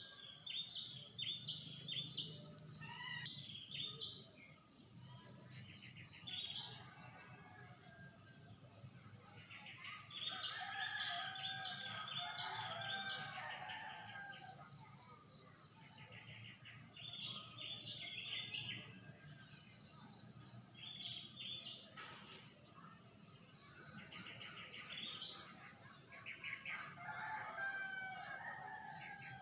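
A steady high-pitched insect drone, like crickets or cicadas, runs throughout. Over it come bouts of quick, repeated bird chirps every few seconds.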